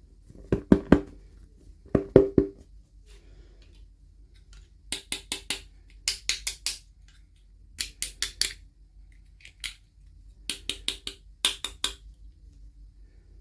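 Hard small objects being handled with taps and clicks. Two heavier knocks come in the first few seconds, then several quick runs of three to five sharp clicks.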